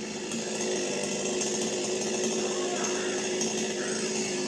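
Chainsaw running steadily at an even pitch, cutting a coconut tree.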